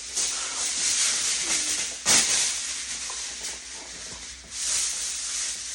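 Aluminium foil rustling and crinkling as it is handled over a baking dish, with one sharp crackle about two seconds in.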